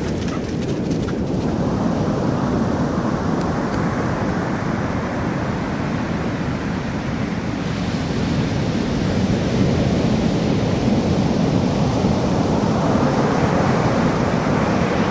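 Pacific Ocean surf breaking and washing up over the sand, a steady rush that builds about two seconds in, eases, and builds again near the end.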